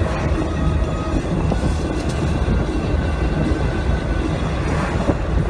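Jeep Willys driving on a paved road: steady low rumble of engine and tyres, heard from inside the cab.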